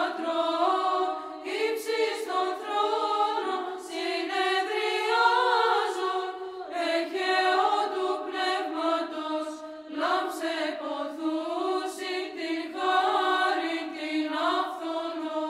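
Orthodox church choir chanting a liturgical hymn, voices singing a continuous, flowing melody.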